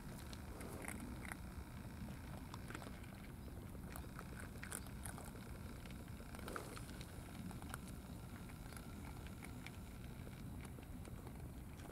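Cats eating dry cat food from trays: faint scattered crunching and chewing clicks over a steady low background rumble.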